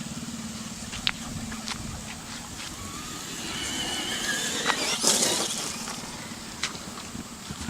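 Electric motor and gear whine of a Traxxas Bigfoot RC monster truck, rising in pitch as it accelerates in the middle, with small clicks of tyres over rough ground. About five seconds in comes a louder burst of scuffing noise.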